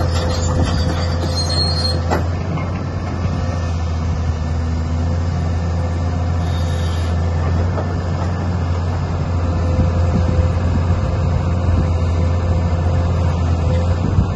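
JCB 315LC Xtra tracked excavator's diesel engine running steadily with a low drone while the boom and arm are raised and the bucket lifted.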